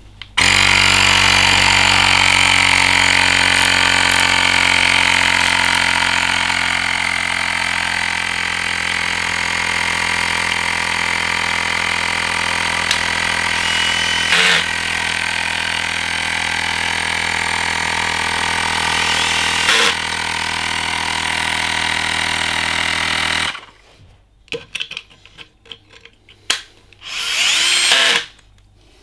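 A small battery-powered electric motor tool runs steadily for about twenty-three seconds, with a knock now and then, and then stops abruptly. A few short clatters follow.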